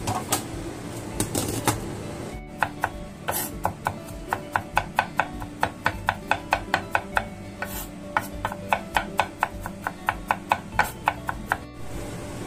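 Kitchen knife finely chopping garlic on a wooden cutting board: a long run of quick, even knocks of the blade on the board, about four a second, starting a couple of seconds in and stopping shortly before the end.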